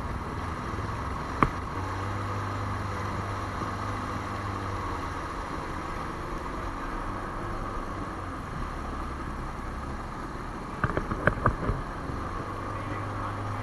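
Sea-Doo Spark personal watercraft engines running steadily on the water, a low drone under a mid-pitched hum; the low drone weakens for a few seconds in the second half. A single sharp click early on and a short cluster of knocks near the end.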